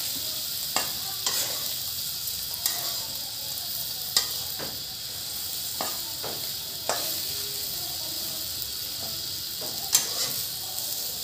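River prawns with onion sizzling in hot oil in a wok, with a steady hiss, while a spatula stirs them, scraping and now and then knocking sharply against the pan.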